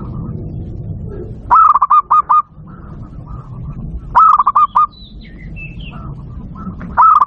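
Zebra dove (perkutut) cooing: three loud phrases about two and a half seconds apart, each a rising first note followed by a quick run of shorter notes. A smaller bird chirps faintly between the second and third phrase, over a steady low rumble.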